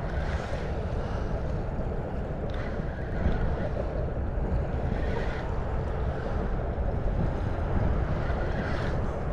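Steady wind rumbling on the microphone, with bay water washing against the shore.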